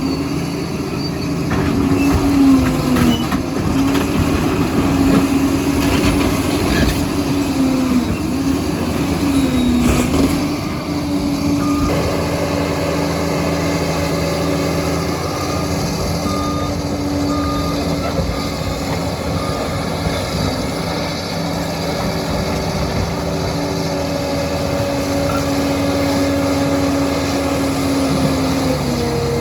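Diesel engine of a Liebherr PR 746 crawler dozer running steadily at working revs, its pitch sagging briefly and recovering three times.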